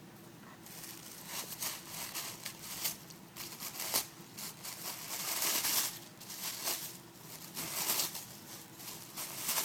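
Christmas wrapping paper crinkling and tearing in irregular bursts as a greyhound rips open a present. It starts about a second in and is loudest around the middle.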